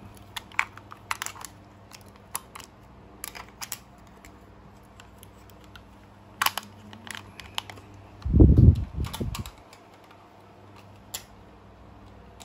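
Scattered clicks and taps of a hand-held multimeter and its test leads being handled, over a faint steady hum. A louder low bump of about a second comes some eight seconds in.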